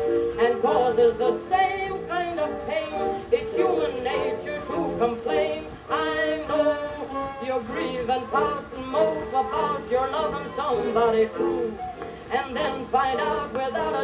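A 78 rpm OKeh shellac record of a 1922 acoustic-era recording of a popular song playing on a turntable; the music sounds thin and muffled, with nothing above the upper midrange.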